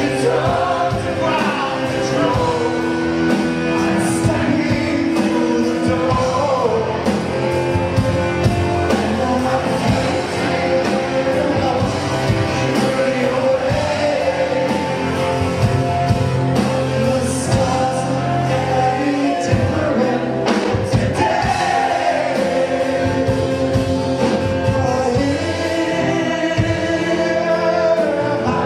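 Rock song with a lead singer over a full band, loud and continuous.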